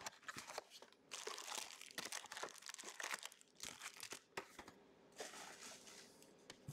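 Faint crinkling and rustling of trading cards and foil pack wrappers being handled, in irregular bursts that thin out in the second half.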